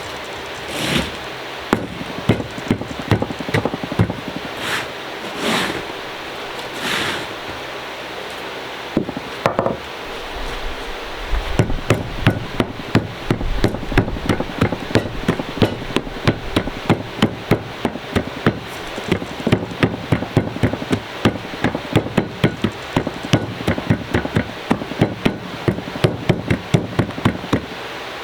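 Dried clay being pounded to break it into small pieces for recycling. For the first ten seconds there are scattered knocks and a few short swishes; from about eleven seconds in, the blows come quickly and steadily, about three a second.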